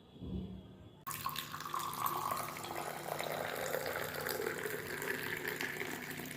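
Liquid pouring in a steady stream, starting suddenly about a second in.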